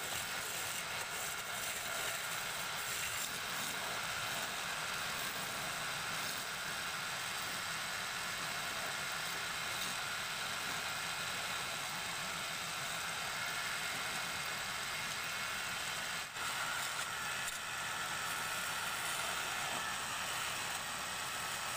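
Wood lathe running steadily while a hand chisel cuts a spinning wooden spindle: a continuous even hiss and whir from the motor and the cut, with one brief dip about three-quarters of the way through.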